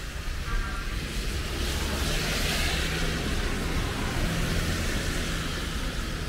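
Rainy street sound: a steady hiss of rain and wet road under the low hum of a car engine, with tyres swishing through the wet about two seconds in.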